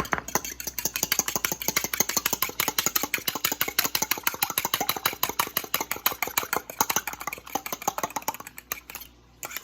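A fork beating a raw egg with milk, clicking rapidly and evenly against the side of the dish, about five or six strokes a second, until it stops just before the end.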